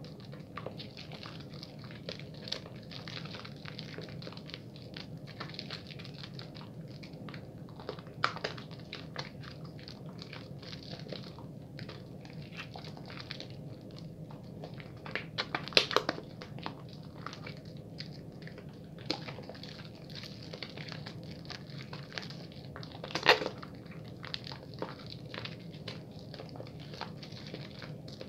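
A wet bar of soap being lathered quickly, with continuous wet squishing and fine crackling of the foam. There are louder bursts of squelching just past halfway and again near the end.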